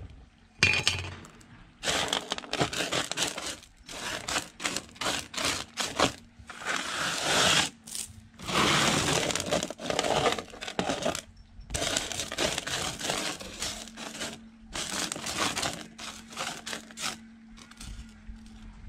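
Washed sapphire gravel being pushed and spread by hand across a sheet-metal sorting table, the pebbles scraping and rattling in irregular bursts.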